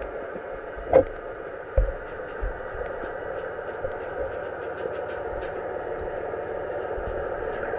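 Steady drone of a boat engine heard underwater, with scattered faint clicks and two dull knocks in the first two seconds.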